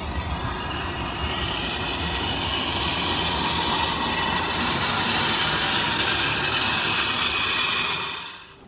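An SUV's bare alloy front wheel rim, its tyre gone, grinding along the asphalt at road speed: a steady high-pitched grinding that drops away near the end.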